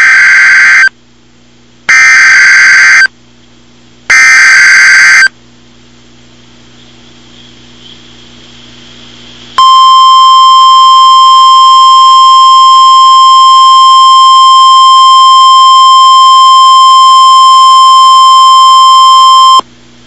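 NOAA Weather Radio Emergency Alert System (EAS) alert for a tornado watch. It opens with three buzzy, roughly one-second bursts of SAME digital header data, evenly spaced. After a pause of faint static, the steady single-pitch 1050 Hz warning alarm tone sounds and holds for about ten seconds.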